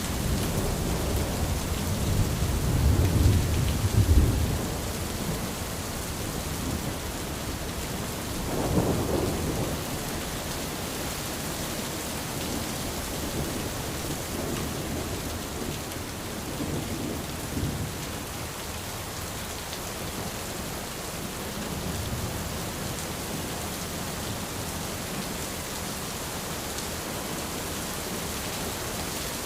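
Steady rain falling on an umbrella, with rolls of thunder: the loudest in the first four seconds, another about nine seconds in, and fainter rumbles later.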